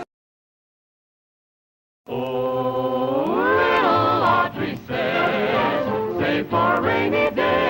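About two seconds of dead silence, then a cartoon's opening theme starts: a choir sings held, rising chords over orchestra and carries on into a bouncy sung tune.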